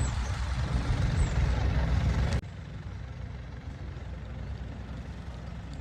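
Steady low rumble of a moving vehicle that drops suddenly to a quieter steady hum about two and a half seconds in.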